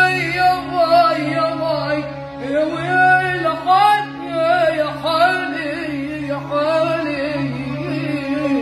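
A boy's strong voice singing a long, ornamented Arabic melody with gliding, bending notes, accompanied by a bowed violin. A steady low drone sounds underneath throughout.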